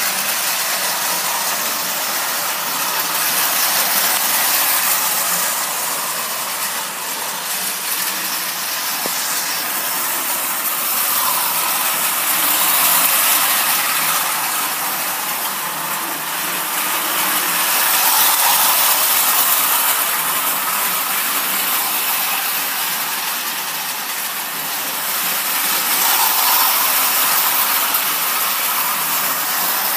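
Marx tinplate toy diesel trains running on metal track: a steady mechanical running noise of wheels and motors that swells louder several times as the trains come close and eases as they move away.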